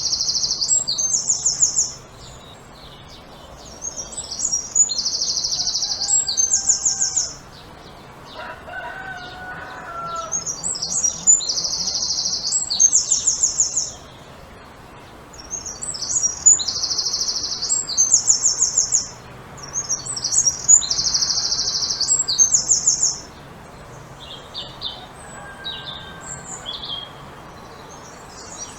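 A songbird singing the same high, trilling phrase over and over, five times, each phrase about two to three seconds long with short pauses between. A fainter, lower call is heard between the first and second halves, and short high notes come near the end.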